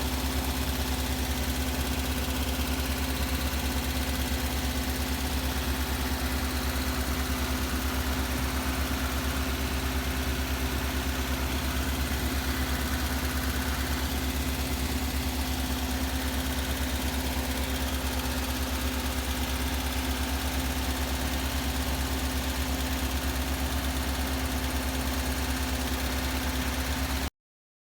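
Air-cooled VW Bus engine idling steadily with an even low pulse, which cuts off suddenly near the end.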